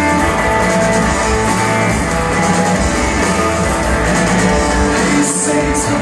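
Live rock band playing: electric guitars sustaining chords over bass and drums, heard from the audience in a concert hall.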